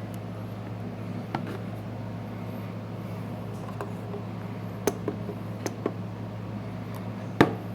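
Steady low hum with a few sharp clicks and taps from handling small hard objects, the loudest click near the end.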